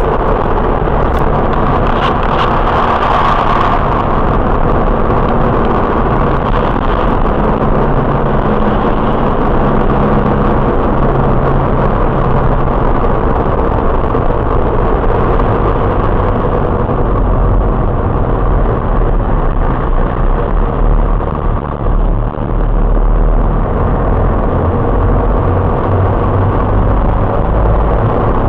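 Car driving at steady speed, engine and tyre noise picked up from inside the cabin by a dashcam's built-in microphone.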